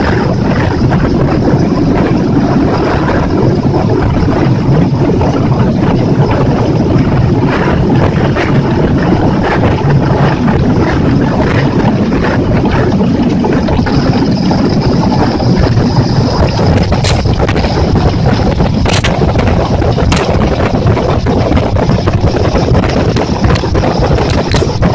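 Small boat running at speed under a Yamaha F60F four-stroke outboard, the motor and rushing water heavily covered by wind buffeting the microphone. A few sharp knocks come in the second half.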